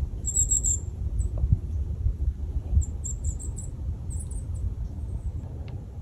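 Golden-crowned kinglet giving very high, thin call notes: one short call just after the start, then quick runs of notes about three to five seconds in. A low rumble runs underneath.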